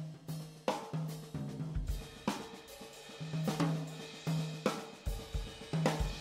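Background music with a steady beat: a drum kit with snare, kick drum and cymbals over a bass line.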